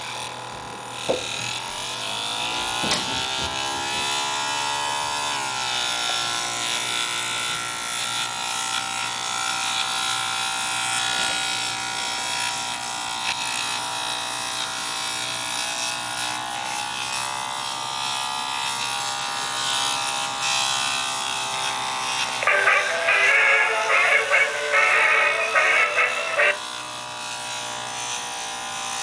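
Laptop DVD drive (TSSTcorp TS-D633A in a Dell XPS 1340) spinning a disc: a whine that rises in pitch over the first few seconds as the disc spins up, then holds steady. About 22 seconds in, a loud harsh buzzing chatter breaks in for about four seconds before the steady whine returns. This is the abnormal drive noise the owner cannot explain.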